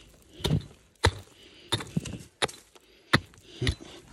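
Rock hammer (pick) chipping into stony ground around a buried rock: about seven sharp strikes in four seconds, unevenly spaced, some with a duller thud of earth.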